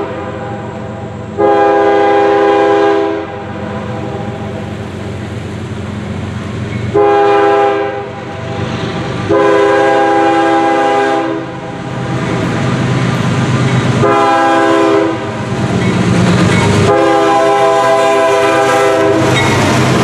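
Air horn of the lead locomotive of an approaching CSX freight train, a GE ES40DC, sounding five blasts, long and short in turn, each a steady multi-note chord. In the last few seconds the locomotives pass close by, with diesel engine rumble and the sound of the wheels on the rails.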